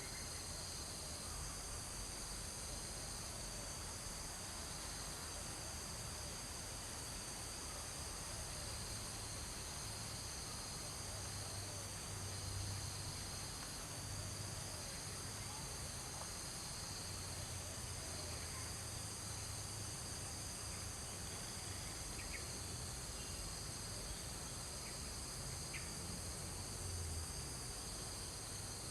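A steady chorus of insects, a continuous high-pitched drone in several bands with no break.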